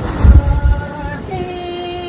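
A voice holding a long, drawn-out sung note, broken about a quarter second in by a burst of low rumbling thumps, then taking up another long held note.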